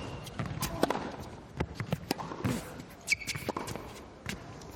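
Tennis ball struck by rackets and bouncing on the court, a sharp knock every half second or so, with a short high squeak about three seconds in.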